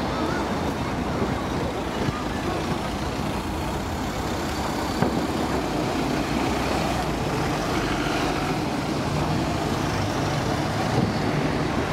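Distant fireworks: a few faint, sharp pops, the clearest about five seconds in and another near the end, over a steady rumble of outdoor background noise.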